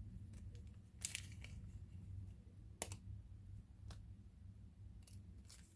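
A few faint, sharp clicks and light handling noises as a metal head pin is put away in a small storage container, over a low steady hum.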